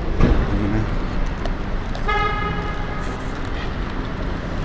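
A car horn sounds once, a steady single-pitched toot lasting about a second, about two seconds in, over a steady low rumble of traffic. A brief thump comes near the start.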